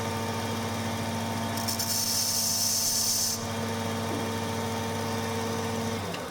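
A belt grinder's motor runs steadily. From about a second and a half in there is a hissing grind for about two seconds as the chipped, bent tip of a steel manicure scissor is ground off on the abrasive belt. The motor cuts off abruptly near the end.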